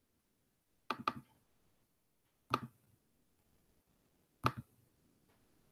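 Computer mouse clicks: three short clicks about a second and a half to two seconds apart, the first a quick double click.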